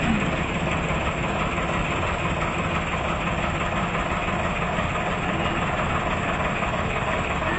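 Ashok Leyland 2518 tandem-axle truck's diesel engine idling steadily.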